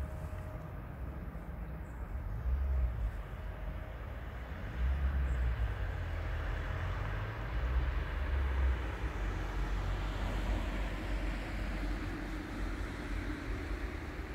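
Low rumble of a motor vehicle running nearby, getting louder about five seconds in.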